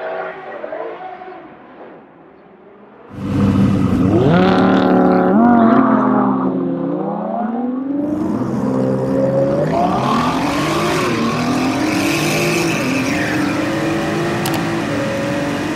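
Supercar engines: a fainter engine note for about three seconds, then a sudden loud engine that climbs and drops in pitch several times as it accelerates, settling into a loud, wavering run.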